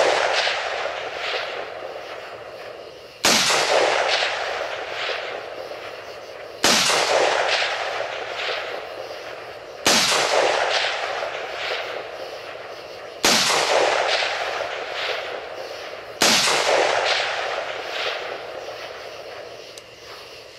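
AR-15 carbine with a 16-inch barrel firing single 5.56mm tracer rounds, five shots about three seconds apart. Each crack is followed by a long rolling echo that fades over about three seconds.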